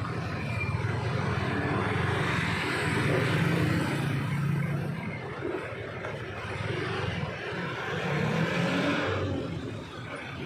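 Road traffic: motor vehicle engines running with a steady low hum and tyre-and-engine noise, swelling about three seconds in and again later as vehicles pass.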